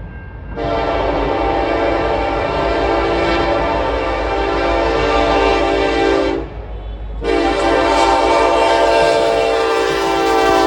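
Locomotive air horn sounding two long blasts, a chord of several notes at once, with a short break between them about six seconds in; the second blast is still going at the end. A low train rumble runs beneath.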